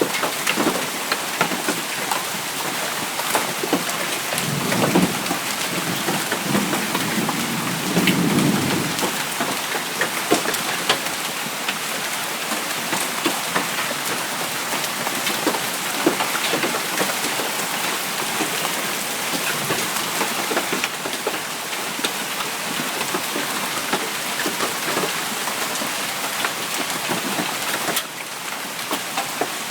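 Heavy rain mixed with marble-sized hail pelting down, a dense hiss full of sharp ticks of hailstones striking. A low rumble swells from about four to nine seconds in.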